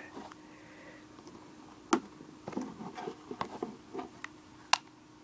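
Small plastic clicks and handling noises as a Flip camcorder's fold-out USB arm is worked by hand, with two sharper clicks, one about two seconds in and one near the end.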